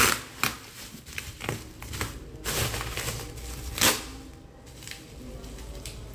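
Plastic bubble wrap crinkling and rustling as it is pulled off a box, with a few sharp crackles; the loudest comes about four seconds in, and it grows quieter after that.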